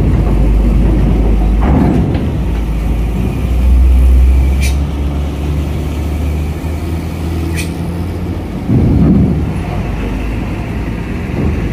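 Loaded Hino diesel cargo truck driving down a ferry ramp and across steel deck grating, its engine running with a loud low rumble that swells as it passes close. A few sharp clanks sound as it rolls over the ramp plates.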